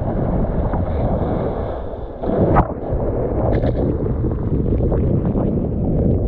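Strong wind buffeting a GoPro's microphone while choppy seawater sloshes and splashes right around it. A louder splash comes a little over two seconds in.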